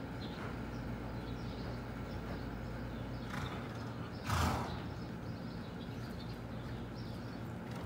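Horses being ridden around an indoor arena, faint hoofbeats on the footing over a steady low hum. About four seconds in there is a brief loud rush of noise as a horse canters close by.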